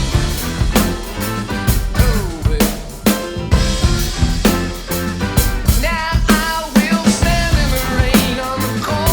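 Drum kit playing a rock groove of kick, snare and rimshot hits, along with a recorded band of bass and other pitched instruments. The drums are Superior Drummer 3 sampled drums triggered from a Roland TD-30 electronic kit.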